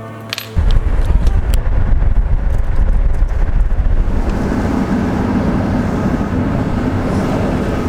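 Wind buffeting the microphone: a loud, low rumble that starts suddenly about half a second in and holds steady.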